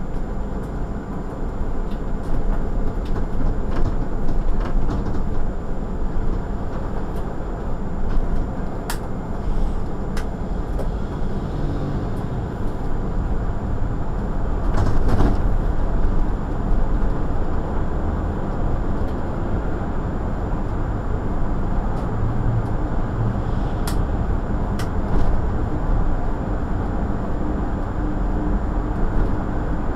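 City bus driving in traffic: steady engine and road noise from the bus, with occasional light clicks and rattles.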